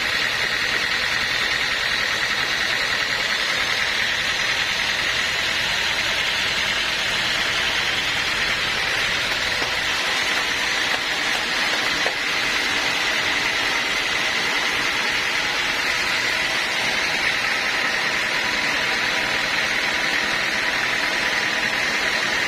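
Sawmill machinery running steadily: a constant high whine over a loud even hiss, with no break or change.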